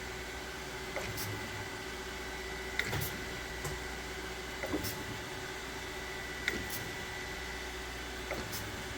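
Kent KGS-1020 AHD hydraulic surface grinder running, with a steady hum from the spindle and hydraulics. A sharp click comes about every two seconds as the hydraulic table reverses direction. The automatic down feed has reached zero and is no longer feeding.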